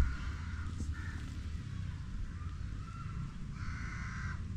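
Animal calls: several short calls, the longest and loudest about three and a half seconds in, over a steady low rumble.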